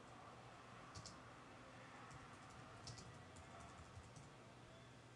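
Faint computer keyboard keystrokes as a file name is typed: a few short, scattered clicks, the clearest about a second in and near three seconds, over a faint steady hum.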